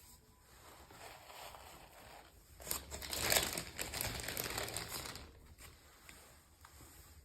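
Packaging crinkling and rustling as it is handled and opened, building after about a second, loudest in the middle and fading near the end.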